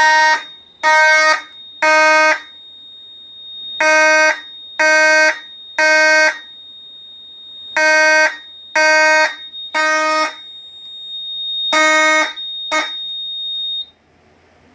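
Fire alarm horn sounding the temporal-three evacuation pattern: three half-second blasts, a pause, then three more, with a steady high-pitched beep under them. Near the end the horn gives one last blast and a short blip, then stops as the alarm is silenced.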